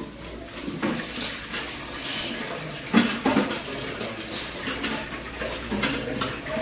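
Dishes being washed by hand at a kitchen sink: running tap water with irregular clinks and clatters of dishes, the loudest about three seconds in.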